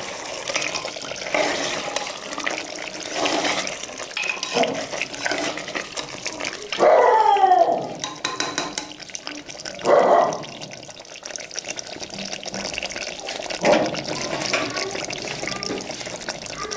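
Metal spoon stirring and scraping thick beef curry in an aluminium pressure cooker, the gravy sloshing and squelching, with two louder bursts around seven and ten seconds in.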